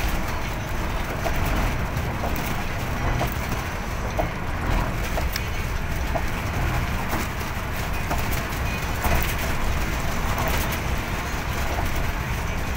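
Steady road noise of a moving vehicle at highway speed: low engine and tyre rumble with wind hiss and light scattered rattles.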